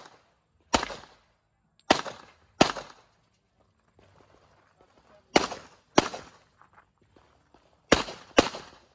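Handgun shots in a practical shooting stage: seven sharp cracks, each with a short echoing tail. Most come in quick pairs about half a second apart, with pauses of a second or more between the groups.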